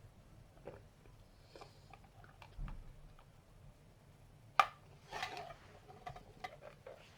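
A single sharp hiccup a little past halfway through, the loudest sound here, followed by a short breathy sound. Faint scattered clicks come before it.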